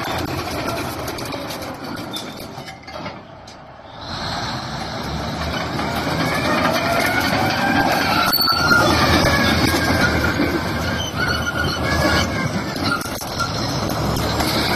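Shantui SD22 crawler bulldozer on the move, its engine running under steel tracks that squeal with wavering high tones. The sound drops away briefly about three seconds in, then comes back up.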